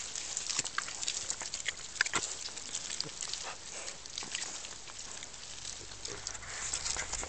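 Piglets eating bread rolls up close, chewing and snuffling at the food in quick, irregular crunches and smacks.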